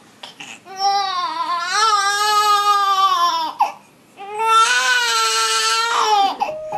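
Baby crying: a few short cries, then two long, high wails with a breath between them. Soft piano music starts right at the end.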